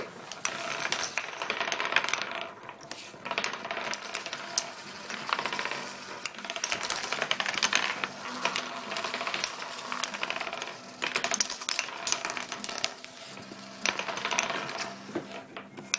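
Several wooden nickels spinning and rattling on a wooden tabletop, many at once, in stretches of rapid clicking that break off briefly a few times.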